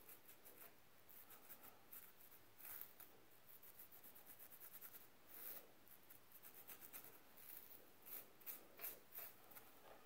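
Plastic fine-tooth comb scratching along the scalp in short, quick strokes, scraping loose dry scalp flakes. The strokes are faint and irregular, come in a quick run in the middle, and a few are louder near the end.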